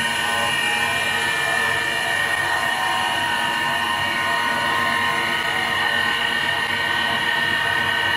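CNC wood turning lathe cutting a spinning wooden post, its spindle at about 517 rpm: a steady machine whine with several high tones over the rough noise of the cutter on the wood.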